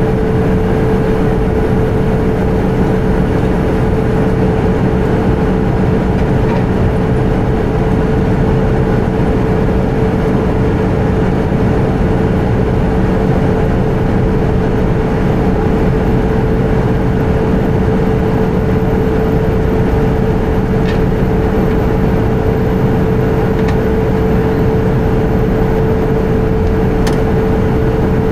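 Steady in-flight drone of jet engines and airflow inside an Airbus A320 cabin, with a constant hum over the rushing noise. A few faint ticks sound in the second half.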